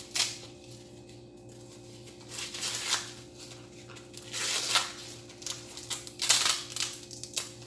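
Dry corn husks being pulled and torn off an ear of sweet corn by hand: rustling, tearing strokes in several bursts a second or two apart.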